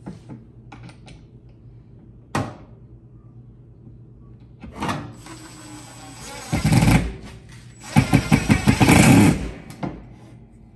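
Power drill driving screws into a wall, in two bursts: a short one about six and a half seconds in and a longer, pulsing one about eight seconds in. A sharp click comes about two seconds in.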